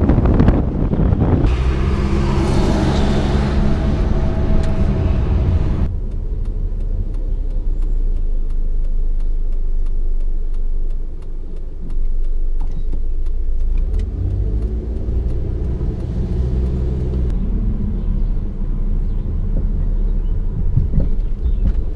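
A car driving, with steady engine and road noise. For the first six seconds wind buffets a camera mounted outside on the roof. After an abrupt change, the sound is a duller, steadier drone heard from inside the cabin.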